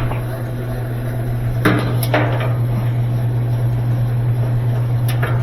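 Clicks and knocks of washing machine parts being handled, a couple about two seconds in and another near the end, over a steady low hum.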